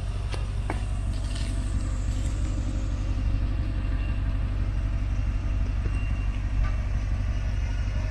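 Lexus LX470's 4.7-litre V8 idling steadily, heard close at ground level as a low, even rumble.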